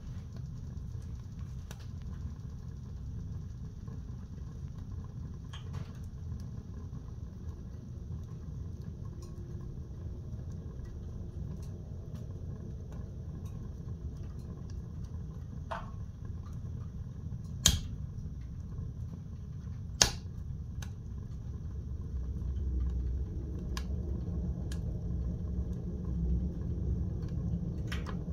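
Wood fire burning in a homemade welded steel-tube camping stove: a steady low rumble with scattered crackles and two sharp pops about two seconds apart, a little past halfway. The rumble grows louder near the end.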